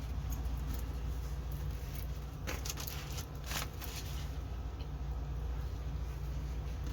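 Quiet room with a steady low hum and two soft clicks or rustles, about two and a half and three and a half seconds in, from handling a diamond painting canvas and kit.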